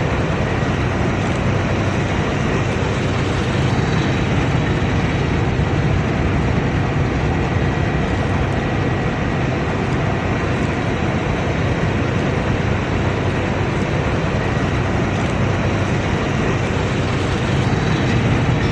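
Combine harvester running steadily: a constant low engine drone under a dense mechanical noise, with a faint steady high whine.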